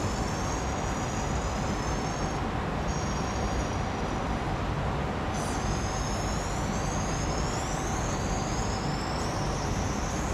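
Aerosol carb and choke cleaner sprayed into a short length of fuel hose, hissing in spells with a high whistle that breaks off a few seconds in and rises in pitch in the second half, over a steady background rumble.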